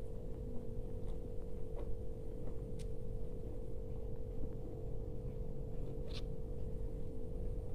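A steady low hum over room noise, with a few faint, scattered clicks and mouth noises from a person eating dahi golgappa.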